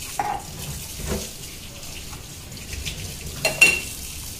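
Water running with dishes and vessels being handled at a kitchen sink, a few clinks, the loudest a ringing clink about three and a half seconds in.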